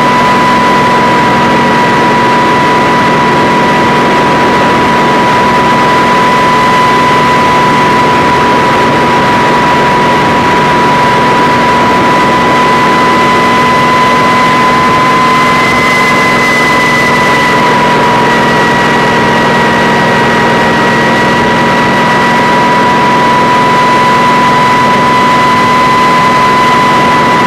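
Kamov Ka-26 helicopter's twin radial piston engines and coaxial rotors running steadily. Over them sits a constant high whine that rises slightly about halfway through, then settles a little lower.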